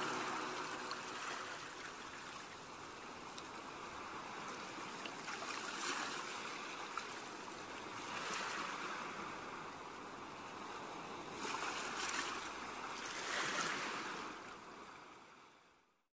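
Ocean surf: waves breaking and washing up a sandy beach, swelling every few seconds, fading out near the end.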